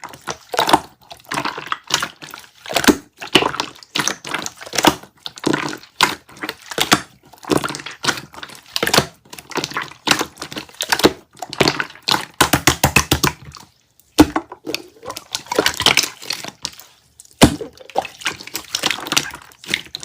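Slime being squeezed and pressed by hand, giving a dense run of quick wet clicks and crackles, with a short pause about two-thirds of the way through.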